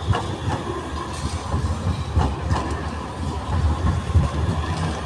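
Metrolink M5000 tram passing at close range: a low rumble of steel wheels on the street rails, with a few sharp clicks and a faint steady whine.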